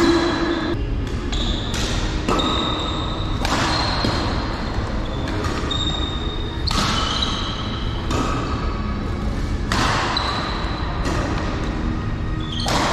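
Badminton rally: rackets smack the shuttlecock about once a second and sneakers squeak on the court floor, echoing in the hall.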